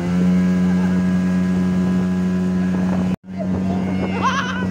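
Suzuki outboard motor running steadily under way, a constant engine hum with wind on the microphone. The sound cuts out for an instant about three seconds in, then the engine hum carries on.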